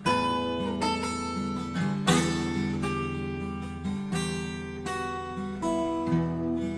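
Instrumental song music led by strummed acoustic guitar chords, with a new chord struck about every two seconds and left ringing. There is no singing.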